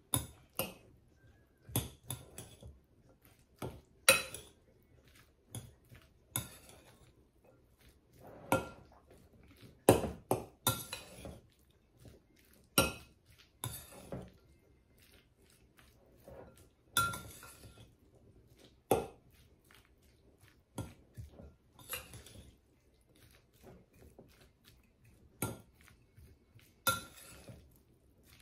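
Metal fork clinking and scraping against a glass mixing bowl as chicken salad is stirred and folded. The clinks are irregular, roughly one a second, with short pauses between strokes.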